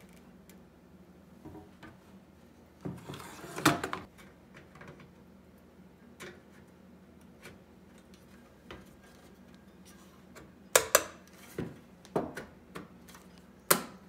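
Plastic faceplate of a Chevrolet car radio head unit being fitted back onto its metal chassis: scattered clicks and knocks of handling, with sharper snaps as the faceplate's clips catch, several in the last few seconds.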